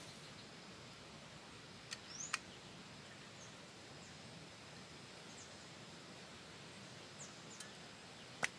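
Faint outdoor background with a few sharp clicks as a portable camping gas stove and its canister are handled: two close together about two seconds in, and the loudest near the end. Faint short high chirps sound now and then.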